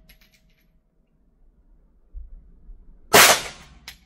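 A single shot from a compensated Canik TTI Combat 9mm pistol about three seconds in, ringing briefly off the walls of the indoor range. A spent brass casing clinks on the floor just after it.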